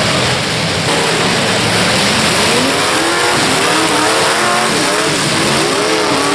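Demolition derby car engines revving hard, several pitches climbing and falling over one another, over a loud, dense background noise.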